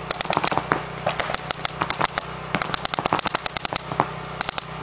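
Paintball markers firing in rapid volleys of sharp pops, several a second. The densest run comes about two and a half to three seconds in.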